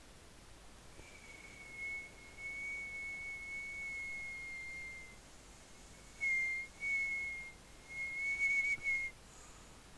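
A person whistling: one long, high note held for about four seconds, then three shorter notes at nearly the same pitch, the last one wavering.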